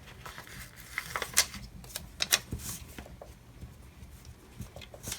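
Paper sticker sheets and planner pages being handled: light rustling with scattered sharp clicks and taps, the loudest about one and a half and two and a half seconds in.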